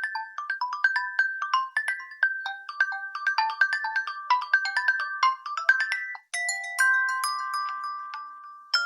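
Xiaomi Redmi Note 9 preset call ringtones being previewed. A quick melody of short, clipped notes stops about six seconds in, and the next ringtone starts straight after with slower, longer held notes. Another ringtone begins right at the end.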